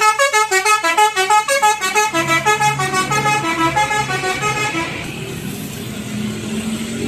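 Tourist bus's basuri horn, a multi-tone musical horn, playing a fast melody of short stepped notes, loud. It dies away about five seconds in, leaving traffic noise.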